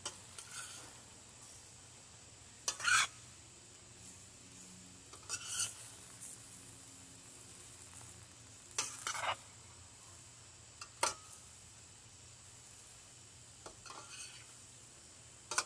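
A metal spoon stirring and scraping sliced vegetables around a stainless steel frying pan, about seven short strokes a couple of seconds apart, over a faint steady hiss.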